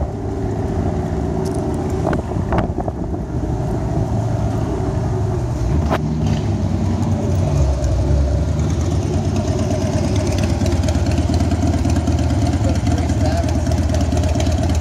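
Classic Chevrolet Impala's exhaust: the engine idles with a steady, deep rumble that grows louder about eight seconds in.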